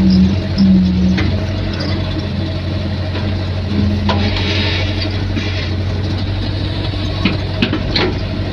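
Excavator engine running steadily, with a few sharp knocks about four seconds in and near the end.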